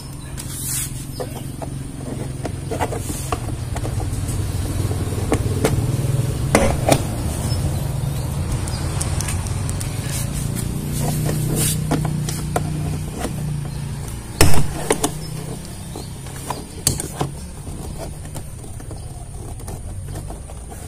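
Plastic door-trim clips being pried out of a car door with a trim tool: scattered clicks and snaps, the loudest sharp pop about two-thirds of the way through, over a steady low hum.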